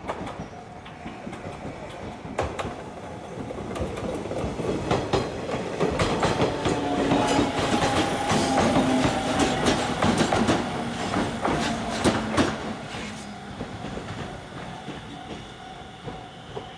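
Echizen Railway electric train passing close by, its wheels clacking over the rail joints under a steady motor whine. The sound builds to a peak midway, then fades as the train moves off.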